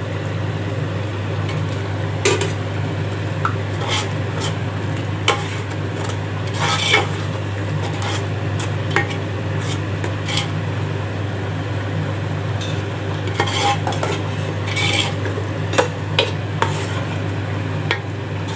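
A perforated steel ladle stirring yogurt into frying masala in a large metal pot, scraping and clinking against the pot at irregular moments over a steady sizzle. A steady low hum runs underneath throughout.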